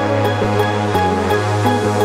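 Background electronic music with a sustained bass line and a steady beat of light ticks.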